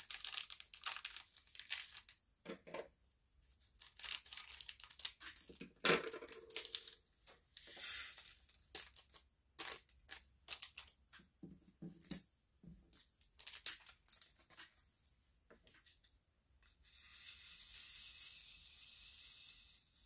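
Small plastic bag of acrylic rhinestone drills being handled and opened, with the drills clicking as they are poured into a plastic drill tray. Near the end the tray is shaken for about three seconds, the drills rattling steadily across its ridges.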